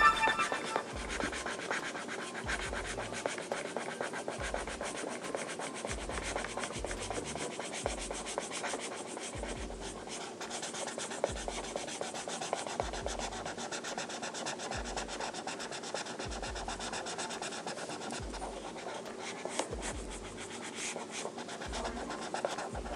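A colouring tool scratching and rubbing steadily on paper in quick back-and-forth strokes, filling in a large area with colour. Short low thumps come about once a second throughout.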